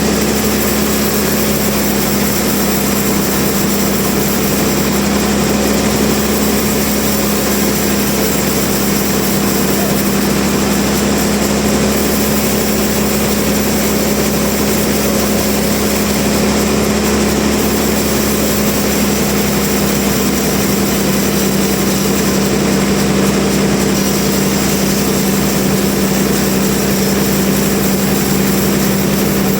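Sawmill machinery running with a loud, steady hum that does not change.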